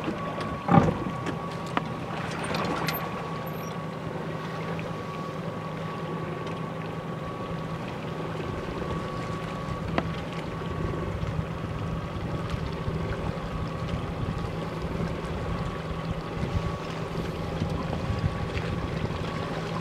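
Boat engine running steadily at low speed with a constant hum, and wind noise on the microphone. A sharp knock about a second in.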